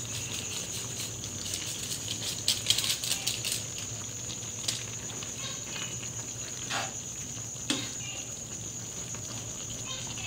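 Metal ladle stirring soup in an aluminium pan: scattered clinks and scrapes, busiest about two to three seconds in, then a few single knocks. A steady high-pitched whine runs underneath.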